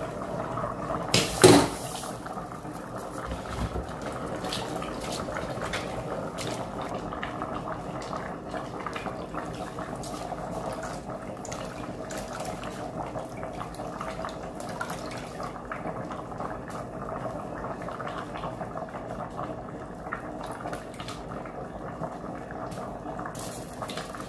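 Stainless-steel pot of ukwa (African breadfruit) boiling, bubbling steadily throughout. A sharp metal clank of the pot lid about a second and a half in, then small scattered splashes and clicks as washed bitter leaf goes into the pot.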